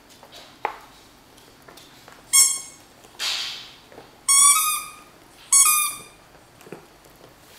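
Rubber chicken dog toy squeezed by a dog's bite, giving three high honking squawks, the last two longer than the first. There is a breathy rush of air between the first and second.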